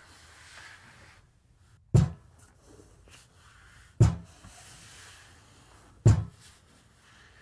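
Three heavy thuds at a cell door, evenly spaced about two seconds apart, each with a short ring after it.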